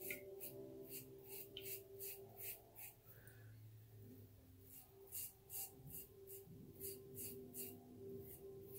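RazoRock Blackhawk razor scraping through two days' stubble on the neck in short quick strokes, about three a second, with a pause of about two seconds in the middle. Faint background music underneath.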